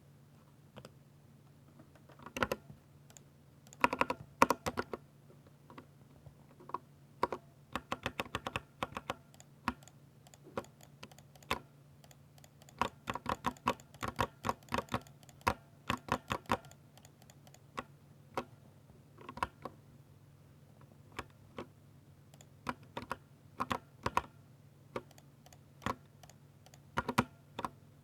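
Typing on a Ducky 60% mechanical keyboard with linear silver switches: quick runs of sharp key clacks broken by short pauses. A faint steady low hum sits underneath.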